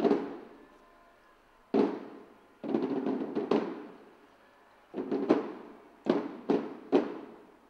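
Irregular drum beats: about nine single sharp strikes, each ringing out over about a second, with a short roll a little under three seconds in.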